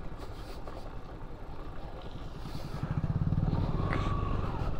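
Motorcycle engine running on the move, its low firing rhythm growing louder about three seconds in.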